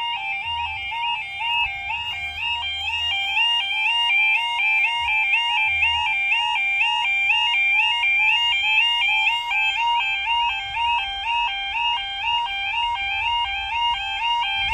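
Two UK automatic half-barrier level crossing warning alarms sounding together, a loud two-tone warble switching between a lower and a higher pitch a few times a second. They are at full daytime volume, not yet turned down to night mode.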